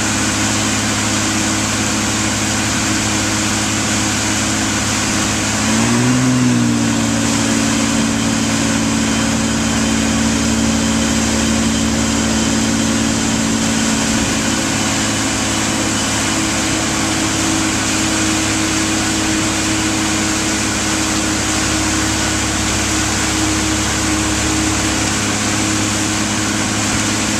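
Motorboat engine running steadily while towing, over a steady rushing noise. About six seconds in, its pitch briefly rises and dips before settling again.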